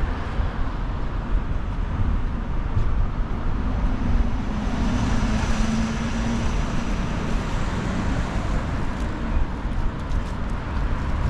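Road traffic on the bridge roadway: a steady rush of passing vehicles. A bus goes by about five seconds in, its engine hum rising and then fading.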